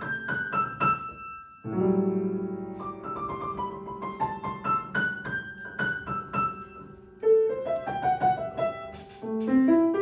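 Piano music: quick runs of single struck notes over a held chord that comes in about two seconds in, with notes climbing in the low register near the end.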